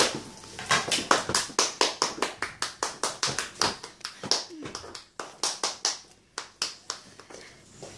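Hands clapping repeatedly, about four claps a second in an uneven run with short pauses, to call a puppy over.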